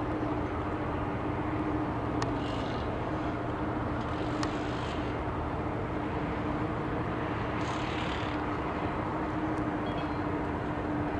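Airbus A330-200 jet engines at takeoff thrust during the takeoff roll and liftoff: a steady rumble with one constant tone through it.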